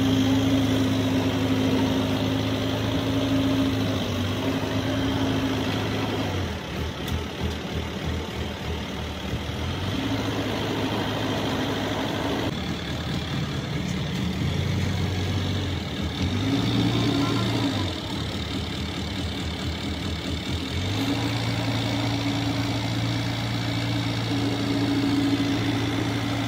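An engine idling with a steady low hum. In a couple of stretches the even hum gives way to uneven throbbing, then settles back.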